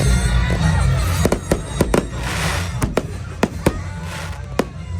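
Fireworks going off in a display: a rapid string of sharp bangs starting about a second in, with two hissing, crackling showers in between. Loud bass-heavy music plays underneath.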